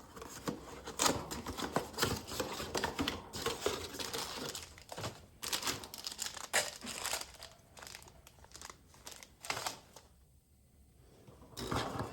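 Packaging crinkling and tearing in irregular crackles as a new dryer heating element is unwrapped, dying away about ten seconds in.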